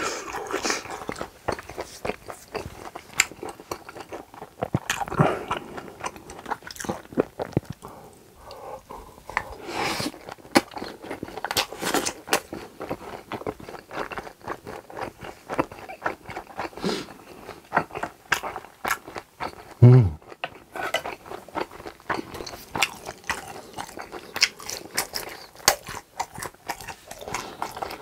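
Close-miked mukbang eating: steady wet chewing, lip smacks and mouth clicks of someone eating grilled pork intestines (gopchang) and tteokbokki. A brief low hum about twenty seconds in is the loudest moment.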